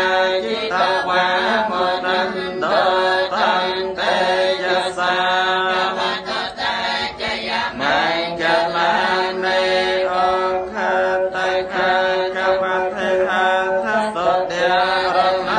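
A group of Buddhist worshippers chanting prayers together, a continuous rhythmic recitation held on a steady pitch.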